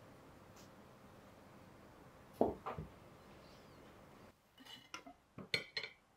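A cheesecake on its metal pan base is set down on a ceramic plate with two clunks about two and a half seconds in. This is followed by a run of short metallic clinks and scrapes as a metal cake server is worked against the plate and base.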